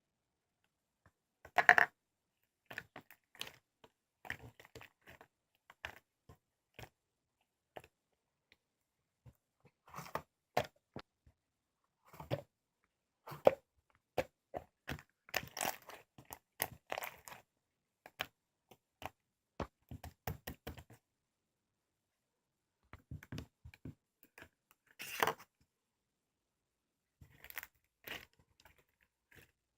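Intermittent handling noises: crinkling, rustling and tearing-like scrapes with scattered clicks and knocks, coming in clusters with fully silent gaps between them. The loudest bursts come about two seconds in and again near twenty-five seconds.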